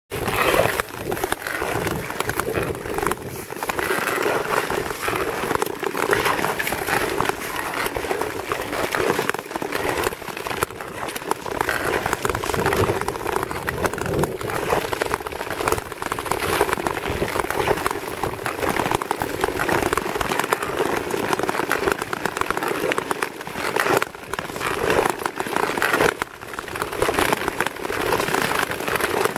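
Long-distance skate blades gliding and scraping over clear lake ice: a continuous rasping hiss scattered with fine crackles.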